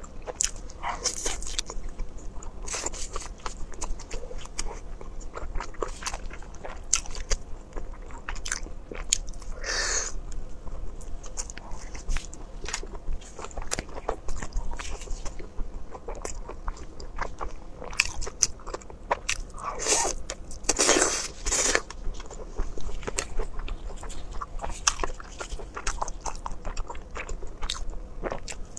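Close-miked biting and chewing of spicy grilled skewers, an octopus tentacle among them: a steady run of wet, smacking chewing and crunching clicks. There are a few louder, longer noises about ten seconds in and again around twenty seconds in.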